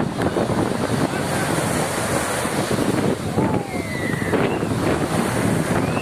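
Sea waves washing on a beach, with wind buffeting the microphone. A few short high calls, most likely people's voices, rise and fall over the surf about halfway through.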